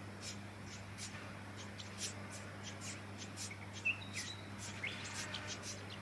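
Brown-headed honeyeater nestlings begging at the nest: a rapid series of short, thin, high-pitched calls, several a second. A few louder, lower chirps come around four to five seconds in.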